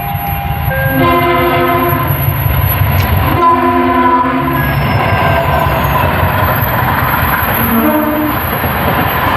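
Train horn sounding three blasts, two longer ones and a short one near the end, over the steady rumble of a running train.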